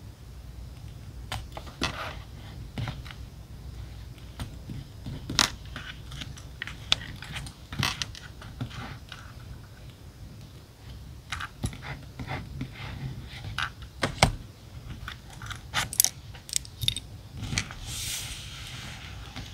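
Scattered light clicks and taps of paper and stationery being handled on a desk, with a short paper rustle near the end, over a low steady hum.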